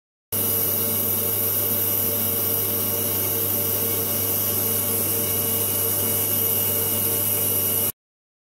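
Brother HS300 wire EDM running its finishing cut: a steady machine hum and hiss, with a constant high-pitched tone over it. It cuts in just after the start and stops abruptly near the end.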